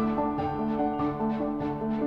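Background music: a gentle instrumental with a steady run of short notes.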